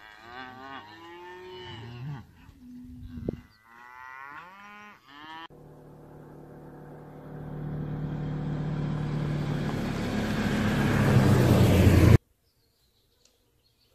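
Cattle mooing, several drawn-out calls that bend in pitch over the first five seconds or so. Then a steady low hum with a rising noise that grows loud and cuts off suddenly about twelve seconds in.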